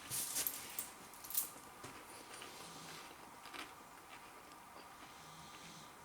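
Mouth chewing crisp bubble-tempura batter on a king prawn: a few sharp crunches in the first second and a half, then faint scattered crackles as the chewing goes on.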